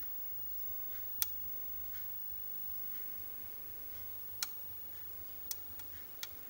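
Stick insect gnawing: scattered sharp clicks at irregular intervals, about five clear ones, the loudest about a second in and several close together near the end.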